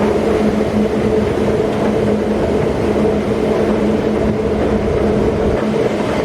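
Farm machinery engine running steadily during wheat harvest, a constant droning hum; the low rumble drops away about a second before the end.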